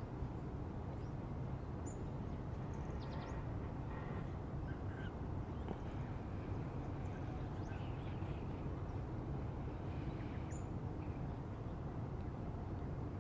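Scattered faint, short bird calls over a steady low rumble.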